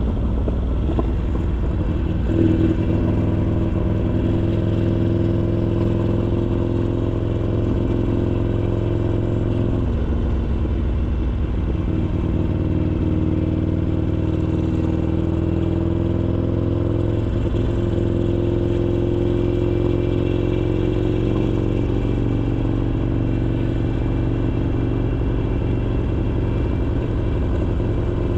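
Harley-Davidson Iron 883's air-cooled V-twin running through a Roland Sands Design 2-into-1 exhaust while the bike is ridden along. The engine note stays steady and shifts pitch a few times.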